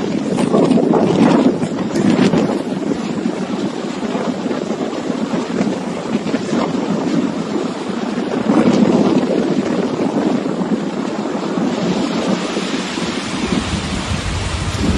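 Strong storm wind buffeting the microphone, a loud rushing noise that swells in gusts near the start, at about two seconds and at about nine seconds in.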